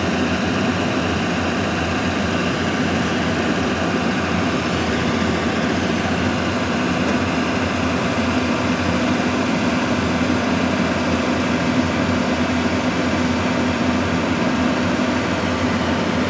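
Heavy diesel engine of construction machinery running steadily, its low hum growing a little stronger in the second half.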